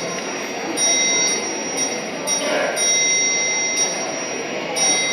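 Dance music built on ringing bells: bright high bell tones struck again and again in short blocks over a full musical backing.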